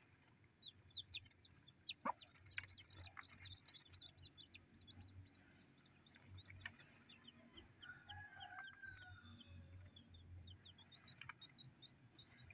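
Newly hatched native chicks peeping faintly: a quick run of short, high, falling notes, several a second, with a lower call about eight seconds in.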